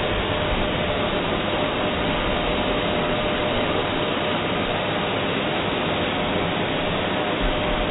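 Blow dryer running steadily: a constant rush of air with a thin steady whine.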